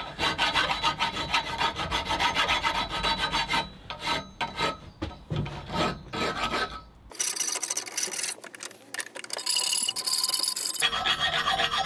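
Hand file rasping back and forth across the steel bars of a welded grate, in quick strokes. The strokes come in runs with short pauses, and sound thinner and brighter for a few seconds after the middle.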